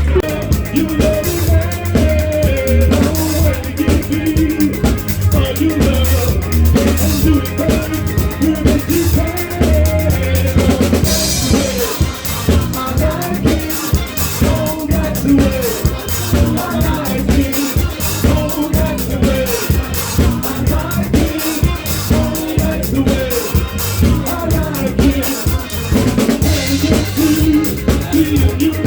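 Live soul band playing, with the drum kit loudest: bass drum and snare with rimshots keeping the beat over a bass line and a melody.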